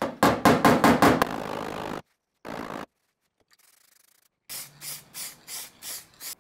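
A body hammer tapping high spots down on a steel car quarter panel: about seven quick metallic taps in the first second and a half. After a break, an aerosol spray can hisses out black guide coat in about six short bursts, about three a second.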